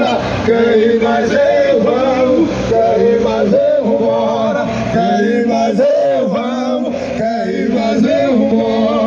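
A man singing in long, wavering held notes that glide up and down, chant-like, with no break.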